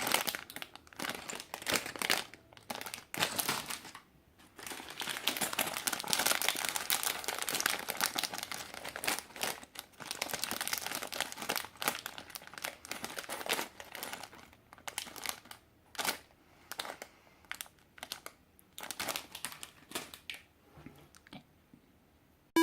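Plastic bags of Lego pieces crinkling as they are handled, an irregular crackle with short pauses that dies away near the end.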